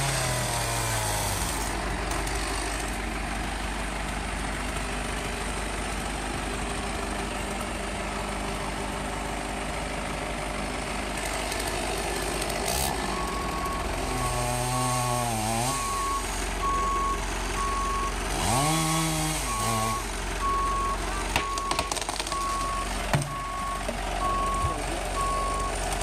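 A truck's engine running steadily, then its back-up alarm beeping at an even spacing from about halfway through as the truck reverses.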